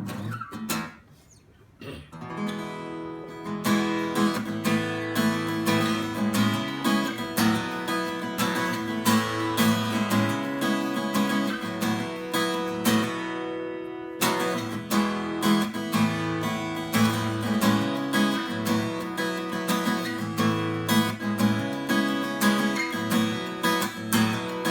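Instrumental intro of a country song, led by an acoustic guitar strummed in a steady rhythm. The music starts after a brief quiet moment near the beginning and pauses briefly about halfway through.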